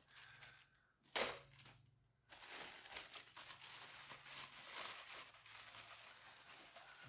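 Plastic packaging bag crinkling and rustling as parts are unwrapped, with one sharp knock a little over a second in.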